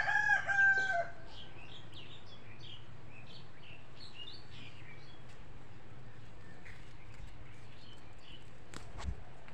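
A rooster crowing at the start, one long held call that trails off about a second in. Then small birds chirping faintly over a steady low hum, with a single sharp knock near the end.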